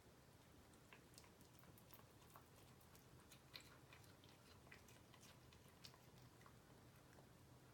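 A cat chewing a piece of raw chicken: faint, irregular small clicks and crunches of chewing.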